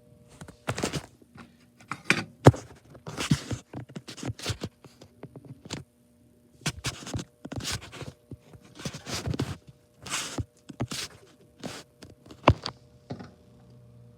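Irregular scraping, rustling and knocks, as of hard objects being handled and moved about, with a short pause about six seconds in, over a faint steady hum.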